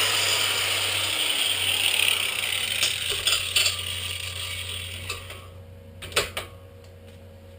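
A power tool winding down after a cut: its whirr fades steadily over about five seconds. A few sharp clicks and knocks follow as parts are handled, loudest about six seconds in.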